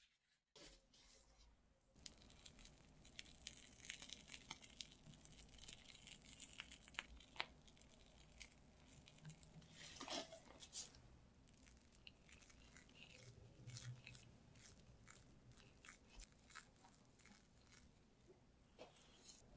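Quiet, wet squishing and fine crackling of whipped cream being piped onto thin crepes and smoothed with a metal spatula, with many small clicks.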